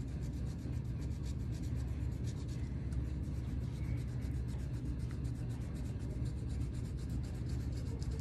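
Green crayon scratching on construction paper in quick, repeated short strokes, drawing grass, over steady background music.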